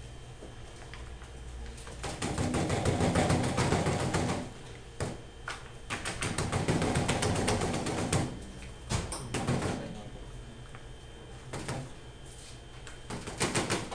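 Aluminium foil loaf pans holding cake batter rattled and knocked against a stainless steel worktable: two bursts of rapid clattering knocks, each about two seconds long, then a few single knocks.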